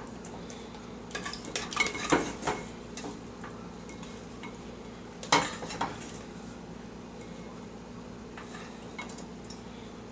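Metal kitchen utensils knocking and clinking against a cooking pot and dishes in a few short clusters, about a second to three seconds in and again just past five seconds, over a steady low hum.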